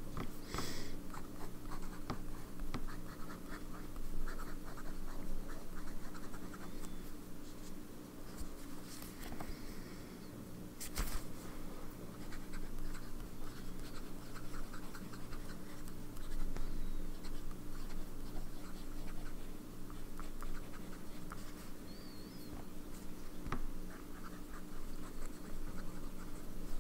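Sailor 1911S fountain pen with a zoom nib scratching across notebook paper in short, irregular writing strokes. A low steady hum runs underneath, and there is one sharp click about eleven seconds in.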